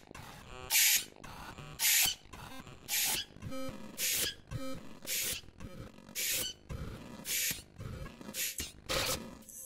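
Synthesized output of the Planetarium granular instrument for UVI Falcon: sharp hissing noise hits about once a second, with faint clicking textures and short tones between them. The hits come quicker near the end.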